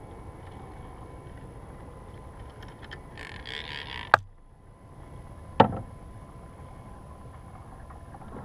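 Steady low wash of water and wind around a fishing kayak, with a short hiss about three seconds in and two sharp knocks, the first just after four seconds and the second about a second and a half later.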